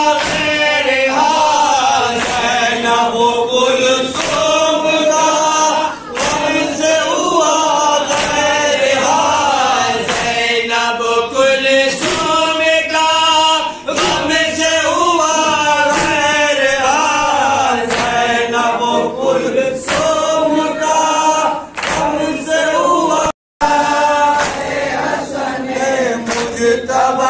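A group of men chanting a noha in unison through microphones and a PA, in long melodic lament phrases. Sharp beats at about one a second run under the chant, the rhythmic chest-beating (matam) that keeps time to it. The sound cuts out for a moment about 23 seconds in.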